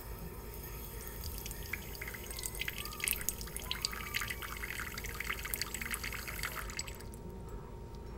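Thin trickle of tap water running from a kitchen faucet into a cup in the sink, with many quick wet clicks as a cat laps at the stream. The trickling stops suddenly about seven seconds in.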